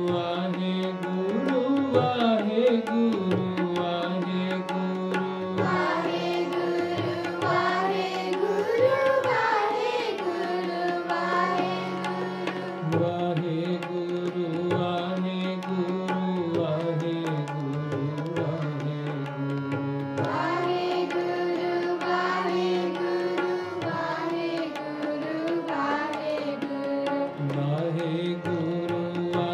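Sikh kirtan: harmoniums sound steady held chords under voices singing a devotional hymn, with a tabla pair keeping a running rhythm. More voices seem to fill in about six seconds in and again about twenty seconds in.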